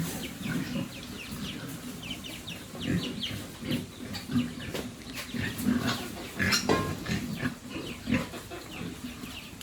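Pigs grunting on and off, in short irregular sounds, with brief high-pitched calls scattered among them.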